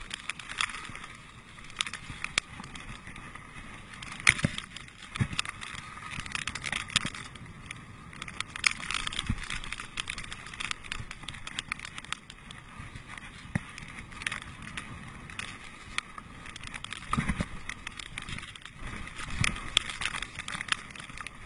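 Mountain bike rolling fast downhill over a rough trail: steady tyre noise with frequent clicks and rattles from the bike as it goes over bumps, and occasional low thumps.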